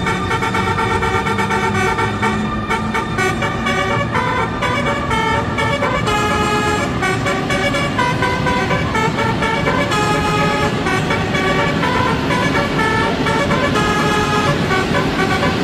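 PKP Intercity train giving a string of horn-like pitched tones that step up and down in pitch every half second or so, over the steady rumble of the train.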